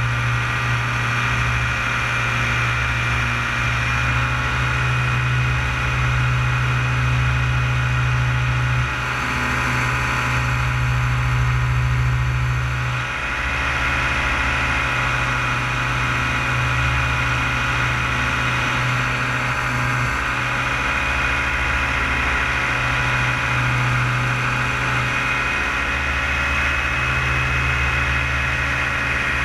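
Paramotor engine and propeller droning steadily in flight, its level dipping briefly a couple of times.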